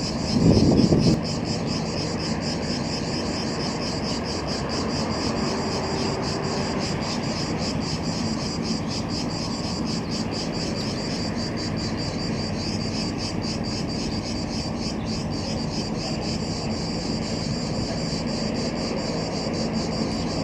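Cicadas buzzing in rapid, even pulses over a steady low hum. A loud low rumble stops about a second in.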